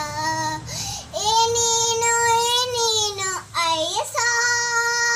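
A young girl singing a Tamil Christian devotional song solo with no accompaniment, holding long sustained notes with short breaths between them.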